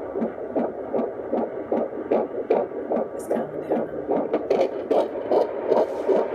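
Fetal heartbeat at 23 weeks picked up by a fetal Doppler: fast, even pulses, about two and a half beats a second, over a steady hiss.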